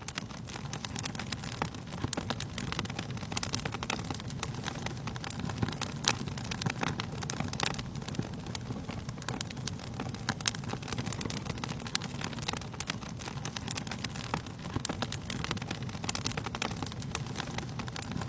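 Fire burning in a fireplace: a steady low rush of flames with frequent, irregular sharp crackles and pops.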